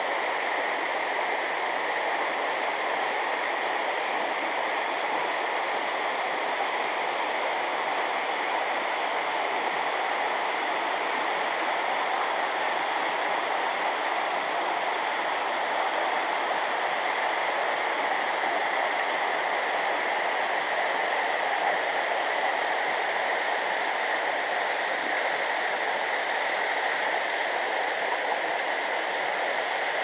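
Waterfall rushing: a steady, even roar of falling and running water that does not change.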